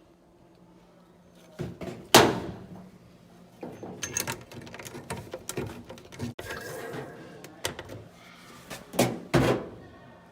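Irregular knocks and thumps, the loudest about two seconds in and a pair more about nine seconds in, with lighter rattling and handling noise between them.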